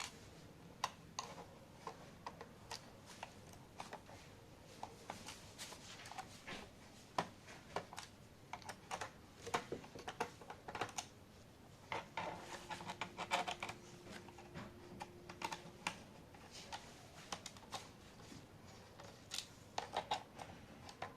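Faint, irregular clicks and ticks of a screwdriver backing out the small bottom-panel screws of a Dell Latitude E5480 laptop, with the light taps of the screws and the tool against the case. A faint steady tone sounds for about three seconds midway.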